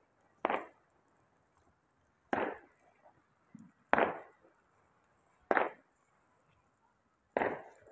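Five sharp chopping strikes, evenly spaced about a second and a half apart, each dying away quickly.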